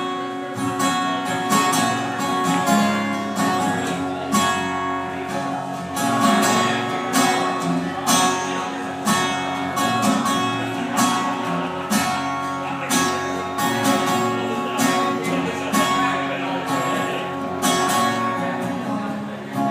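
Instrumental break in a country song: guitars playing over strummed chords and a steady beat, with no vocals.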